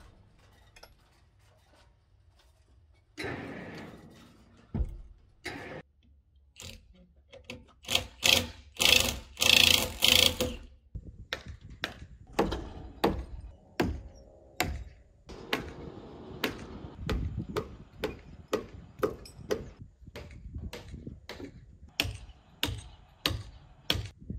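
Repeated sharp knocks of a hammer or mallet striking the timber as the cabin's logs are driven into place, about two blows a second through the second half, with a louder burst of clattering blows about eight to ten seconds in.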